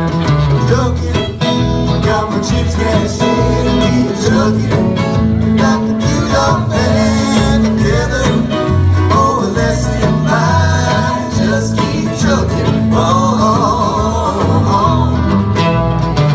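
Live rock band playing an instrumental passage: guitar lines over bass and drums.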